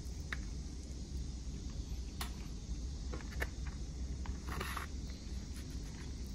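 A fork clicks a few times and briefly scrapes against a plate of chicken and rice, over a steady low rumble.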